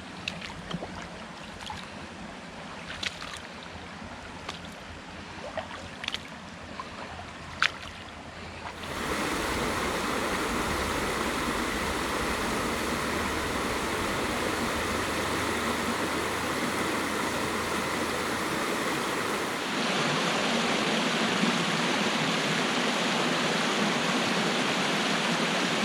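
Creek water rushing over a small waterfall and rapids. It starts quieter, with a few sharp splashes, then jumps to a louder, steady rush about nine seconds in and grows louder again near the end.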